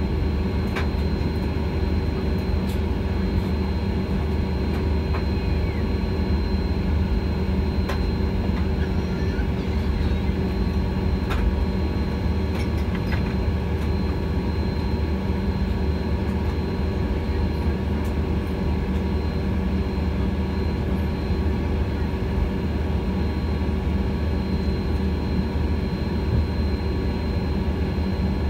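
Airliner cabin noise during taxi: the jet's steady low rumble, with a thin steady high whine over it and a few faint clicks.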